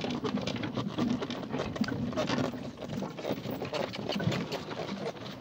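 Donkey cart rolling over a stony dirt road: a steady, irregular clatter of the cart jolting on rocks, mixed with the donkey's hoofbeats.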